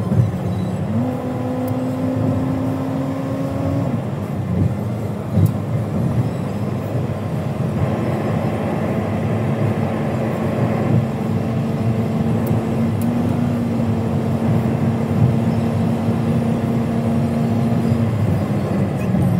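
Steady road and engine noise heard from inside a car cruising on a highway. A steady humming tone underneath shifts pitch up or down a few times.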